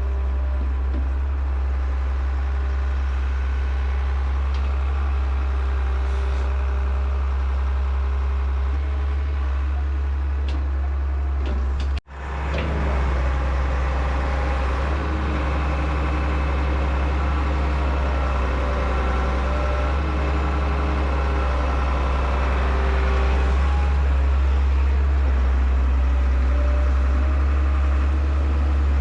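Heavy diesel engine of an excavator running steadily with a deep drone. About twelve seconds in the sound cuts out abruptly and fades back up within a second.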